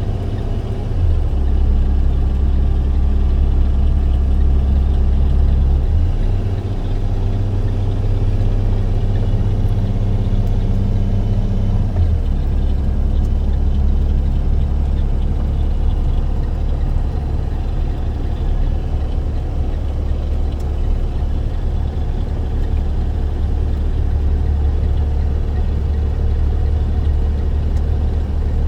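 Box truck engine and road noise while driving, a steady low drone whose pitch steps to a new level a few times, about 1, 6 and 12 seconds in.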